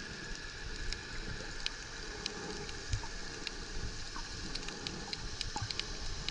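Underwater ambience among coral: a steady low rumble of water with many scattered sharp clicks and crackles, several a second.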